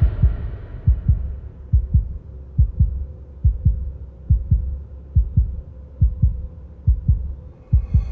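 Heartbeat sound effect: low, paired lub-dub thumps repeating steadily, a little faster than one beat a second, over a faint low hum.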